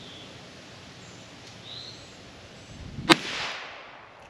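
A single shot from a .22 LR Ruger Wrangler single-action revolver about three seconds in, sharp and followed by a short echo that dies away within a second.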